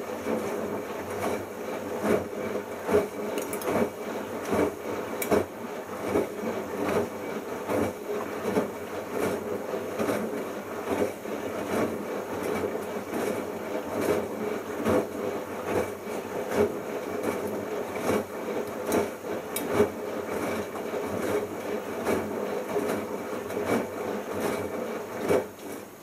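Bosch Logixx WAS32461 washing machine drum turning in one direction with a small load of wet shirts tumbling inside, with irregular light knocks and rubbing. It runs for about 25 seconds and stops shortly before the end, as the drum pauses between turns in the early wash after the machine has sensed a mini load.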